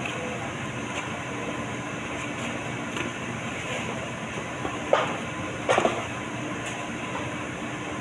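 Steady machinery hum, with a few short knocks and scrapes about five seconds in from foam meat trays and steaks being handled on the cutting board.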